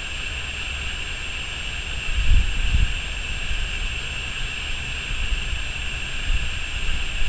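Steady electronic hiss and whine with a fine, fast high-pitched buzz running through it, which the uploader takes for interference from a mobile phone's signal. Low rumbles of wind on the microphone come in about two to three seconds in.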